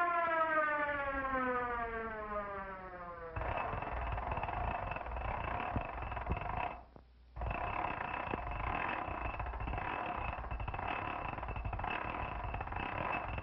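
Cartoon sound effects: a pitched tone slides steadily downward for about three seconds, then cuts to a steady noisy roar. The roar breaks off briefly about seven seconds in, then resumes.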